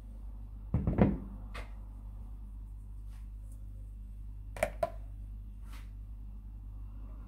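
Plastic mixing bowls and a metal mesh sieve being set down and arranged on a cloth-covered counter: a dull thud about a second in, then two quick sharp clicks past the middle, over a steady low hum.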